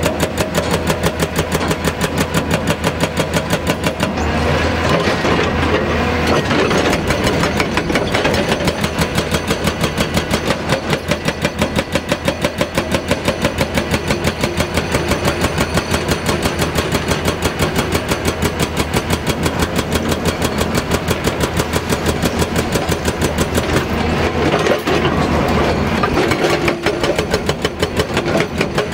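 Hydraulic rock breaker hammering with rapid, even blows over the steady running of the crawler excavator's diesel engine.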